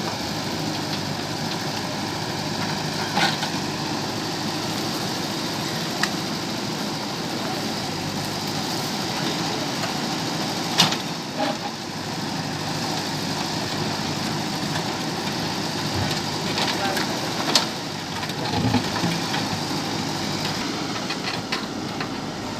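JCB backhoe loader's diesel engine running steadily while digging, with a few sharp knocks from the working machine.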